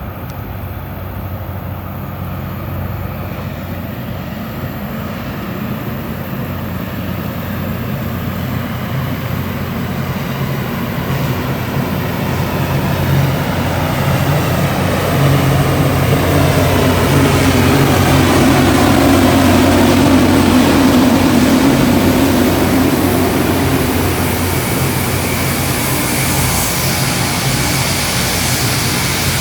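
Loram rail grinder train drawing near, its engines droning steadily and growing louder to a peak about two-thirds of the way through, with a hiss rising near the end.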